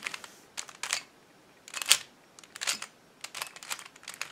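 3x3 Rubik's cube being turned by hand: a quick series of face turns, each a short plastic clack, as the Sune algorithm (R U R' U R U2 R') is performed to orient the last-layer corners.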